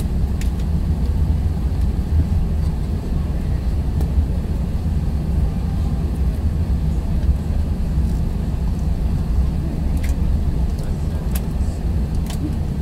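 Steady low rumble in the cabin of an Airbus A380 taxiing after landing: the engines at low power and the wheels rolling on the taxiway. A few faint clicks come near the end.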